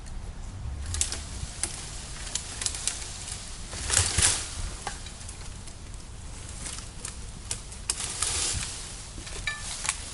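Buckthorn branches and leaves rustling and crackling, with scattered twig snaps, as the tree is pulled on with a rope; a louder rush of leaves and snapping about four seconds in and again near eight seconds.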